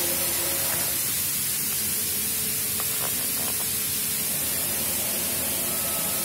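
Steady hiss with no pitch to it, with a few faint light clicks around the middle.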